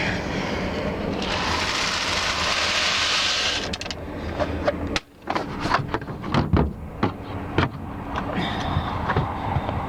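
A loaded trailer rattling as it rolls, with a dense rushing rattle at first and then a run of separate knocks and clanks in the second half.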